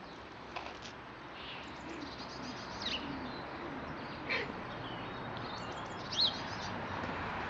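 A few short, high bird chirps over steady outdoor background noise: a falling chirp about four seconds in and a quick up-down chirp near the end.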